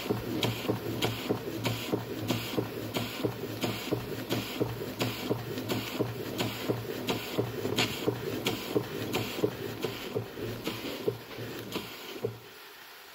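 Schoenner Lipsia model steam engine running, with a rapid mechanical clatter and a sharper tick about twice a second. About twelve seconds in the sound drops away sharply.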